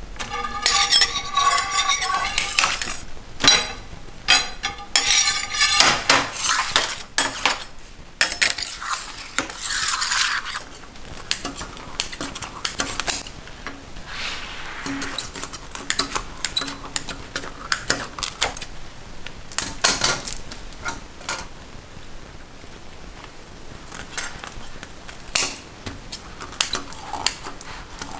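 Metal utensils clinking, knocking and scraping on a work table as handmade sugar candy is worked: a run of irregular clicks and clatters.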